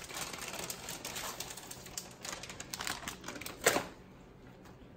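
Plastic shredded-cheese bag crinkling and rustling as it is handled, with one sharper tap about three and a half seconds in, after which it goes quieter.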